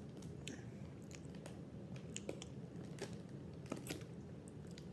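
A person chewing crunchy Combos stuffed snacks with the mouth closed: faint, irregular crunches and clicks.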